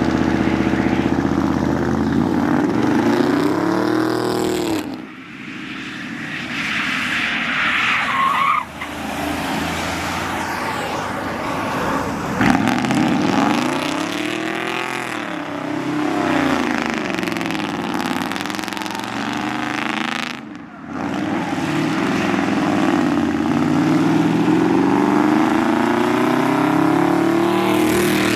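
Sports car engines revving and accelerating hard past one after another, their pitch climbing and falling through the gears, with two brief lulls between cars.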